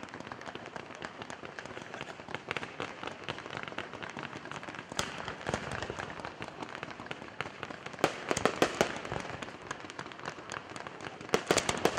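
Fireworks display: a continuous crackle of small bursts, with clusters of louder bangs about five seconds in, again around eight to nine seconds, and near the end.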